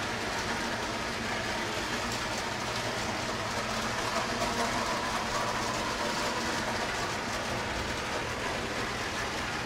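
Toy electric trains running around the track layout, a steady, even mechanical running sound of motors and wheels on the rails.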